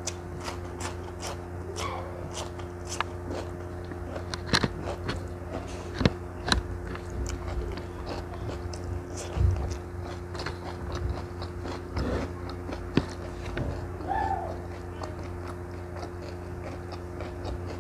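Close-miked eating sounds: crunchy bites and chewing of raw cucumber, with wet mouth sounds and clicks scattered irregularly, the loudest around six, nine and thirteen seconds in. A steady low hum sits underneath.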